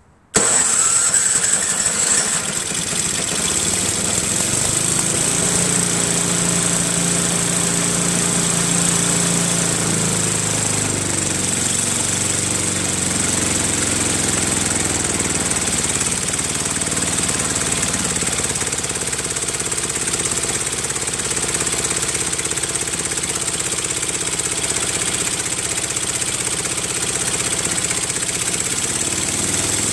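Tecumseh 5 hp single-cylinder snowblower engine starting and then running, its speed shifting as the throttle is worked high and low. The engine has bad compression after being run without oil, so it does not run quite right.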